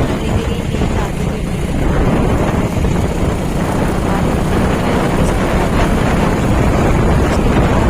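A motorbike running along the road, its engine hum buried under steady wind rushing over the microphone.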